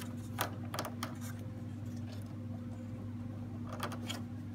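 A few short plastic clicks and taps as wire plugs are handled and pushed onto a printer circuit board: three in the first second and two near the end. A steady low electrical hum runs underneath.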